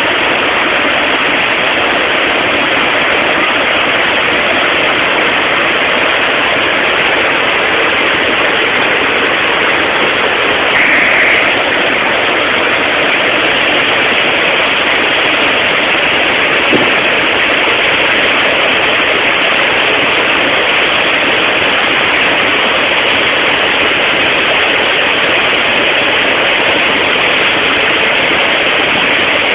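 Steady, loud rush of river water pouring over a small weir. It swells briefly about eleven seconds in.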